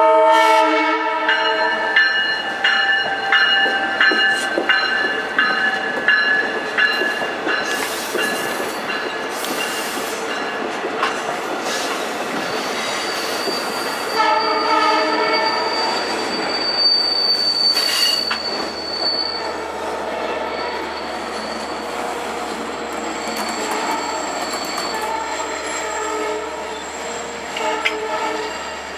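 Long Island Rail Road bilevel commuter train passing, led by cab car 5007: its horn blows at the start and again about halfway through. Wheels squeal with a high whine on the curve and click over the rail joints as the double-deck cars go by.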